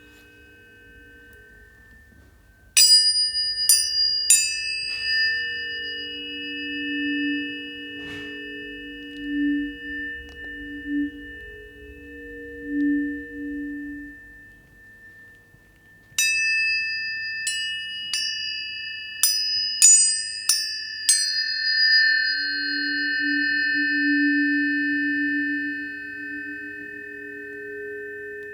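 Planetary tuning forks struck one after another, each strike a sharp click followed by long, steady, overlapping ringing tones. Lower tones swell and pulse between the strikes. There are three quick strikes near the start and a second run of about seven strikes in the middle.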